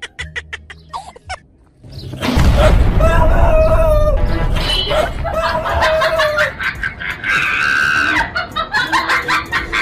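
Chickens clucking, with a rooster crowing, starting about two seconds in over a loud, rough rumbling noise.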